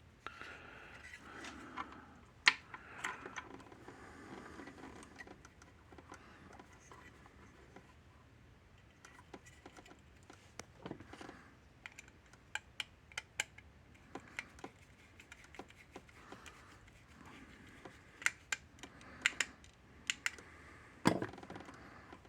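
Scattered small clicks and taps of parts and tools being handled during the swap of a fence energizer's circuit board, with some rustling in the first few seconds. Two sharper, louder clicks come a couple of seconds in and about a second before the end.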